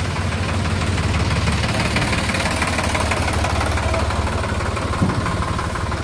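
Sonalika DI 47 RX tractor's diesel engine running steadily while its hydraulic ram tips the trailer body to unload, with a single knock about five seconds in.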